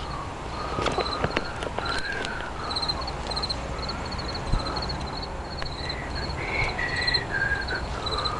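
Birds calling: rapid runs of short high chirps repeating throughout, with lower wavering calls that step down in pitch near the end, over scattered clicks and a steady low rumble.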